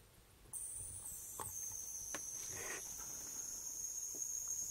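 A 16 mm, 108 kHz ultrasonic mist-maker disc and its driver board running as water reaches the disc: a steady high-pitched hissing whine starts suddenly about half a second in and settles slightly lower in pitch within the next second. A few faint ticks sound over it.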